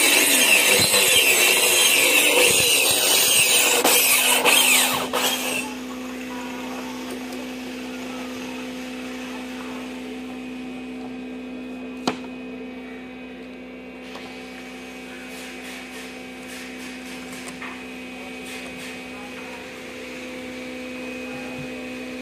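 Loud, rough sanding of the wooden swing cot for about five and a half seconds, then it stops. A quieter steady hum remains, with a single sharp click about halfway through.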